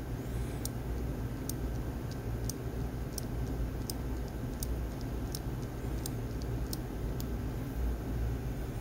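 Rolex caliber 3035 watch movement's date mechanism clicking as the crown and winding stem are turned in a date-change test: about ten light clicks, roughly one every two-thirds of a second, stopping about seven seconds in. A steady low hum runs underneath.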